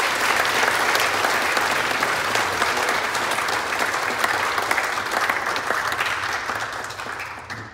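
Congregation applauding, a dense steady patter of many hands clapping that fades out near the end.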